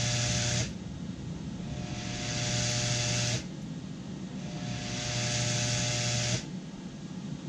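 Vibratory parts-bowl feeder of a crimp machine buzzing, with loose Deutsch size 16 machined contacts rattling through the bowl. It cuts out about half a second in and starts again twice, each run a second or two long, as a reflective sensor switches the bowl driver off and on while the escapement slide fills.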